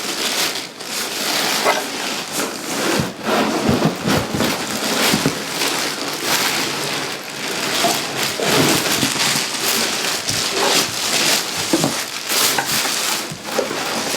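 Plastic packaging rustling and crinkling as it is handled, a steady crackly rustle with many small crackles throughout.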